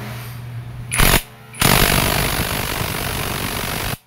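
Power impact wrench run on a motorcycle's clutch centre nut: one short burst about a second in, then a longer run of about two and a half seconds that stops suddenly near the end.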